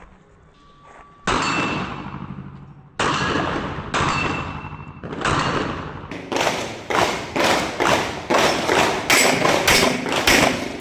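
Rapid 9mm pistol fire from a Glock 34: four shots spaced a second or so apart, then from about six seconds in a fast string of shots about two to three a second.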